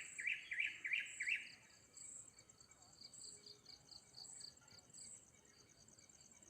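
A bird giving a quick run of sharp chirps, about five in the first second and a half, over a steady high pulsing trill of insects such as crickets that goes on throughout.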